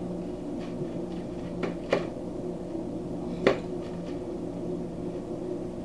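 Two short, sharp knocks, the first about two seconds in and the louder second one about a second and a half later, over a steady low hum.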